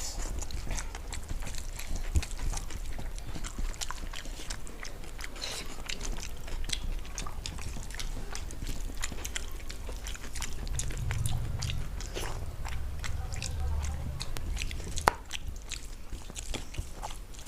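People chewing and biting mouthfuls of rice and curry in close-up, with many small wet clicks and one sharper click about 15 seconds in.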